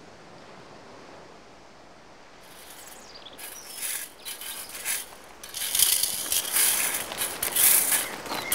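A faint steady hiss, then from about three seconds in, irregular rustling and crunching that grows much louder: several people walking on a dirt path under trees.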